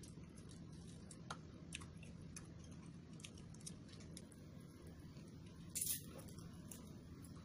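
Faint chewing and mouth clicks of someone eating fried duck and rice by hand, with scattered small smacks and one louder brief noise about six seconds in.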